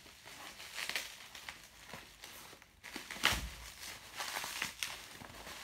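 Plastic bubble wrap crinkling and crackling irregularly as hands pull open a bubble-wrapped package, with a louder bump about three seconds in.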